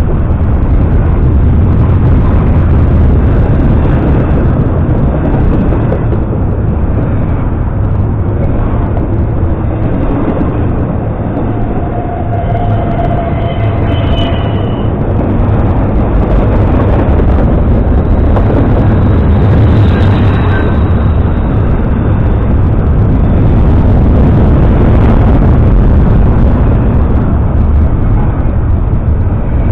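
Double-stack intermodal freight cars rolling past close by: steel wheels on the rails making a loud, steady rumble and rattle.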